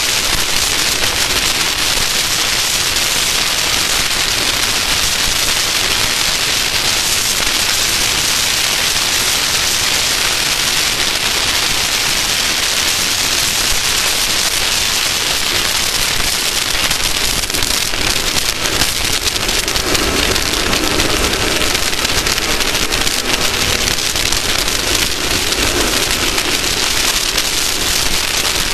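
Loud, steady hiss of wind and water spray rushing over the microphone of a camera riding on a racing boat at speed.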